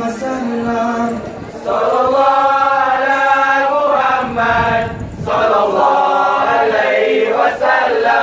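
A kompang troupe of boys and young men chanting in unison without drums, in long held notes that glide between pitches, with short pauses for breath about one and a half and five seconds in.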